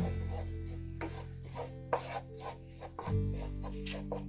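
Spoon stirring and scraping a butter-and-flour roux around a pan in quick repeated strokes, with a light sizzle as the roux cooks on low heat.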